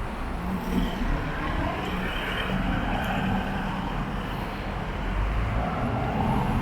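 Steady city street traffic noise, with cars running by.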